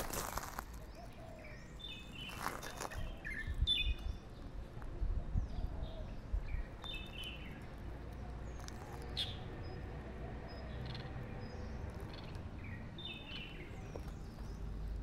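Small birds chirping in short quick runs of high notes, several times over, above a low steady outdoor rumble. A sharp click right at the start.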